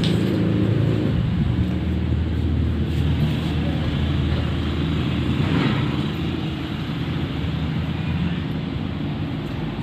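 A steady low rumble of a running vehicle engine, easing off slightly towards the end.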